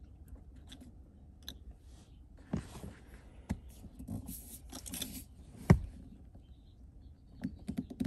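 Scattered plastic clicks and light rubbing as a Toyota Tacoma's plastic shift collar, coated with Plasti Dip, is worked onto the automatic transmission's shift knob. One sharp click, the loudest, comes about two-thirds of the way through.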